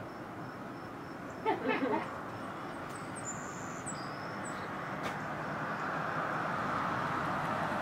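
Outdoor ambience under an approaching thunderstorm: a steady rushing that slowly grows louder, with a few high bird chirps and whistles about three to five seconds in.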